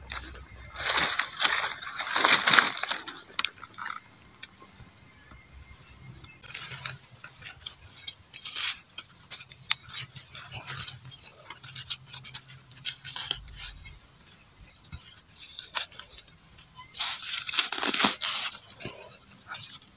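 Dry leaf litter and soil rustling and crunching as termite mushrooms are dug out with a small digging tool, in bursts about a second in and again near the end. Insects buzz steadily throughout, with a louder high buzz for about two seconds in the middle.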